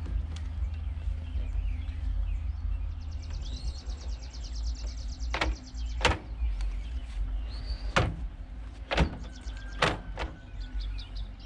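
Haswing Cayman trolling motor's plastic bow mount clunking several times as the motor is swung up and locked into its stowed position. Five sharp knocks come from about five seconds in, roughly a second apart, over a steady low rumble of wind on the microphone.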